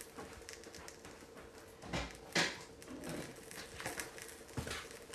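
Quiet room tone with a faint steady hum, broken by a few scattered knocks and rustles, the sharpest about two seconds in, from someone rummaging for a framed photo out of sight of the microphone.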